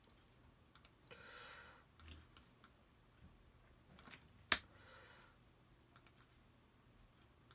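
Scattered computer mouse clicks, about eight of them, quiet apart from one sharp, loud click about four and a half seconds in.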